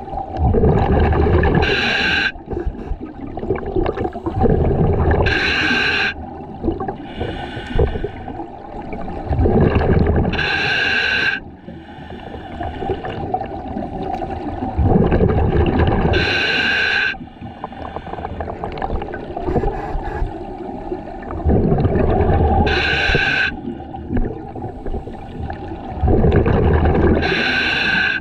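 Scuba diver breathing through a regulator underwater, six slow breaths about every five seconds. Each breath is a loud rumbling burble of exhaled bubbles and a short hiss with a whistling tone from the regulator.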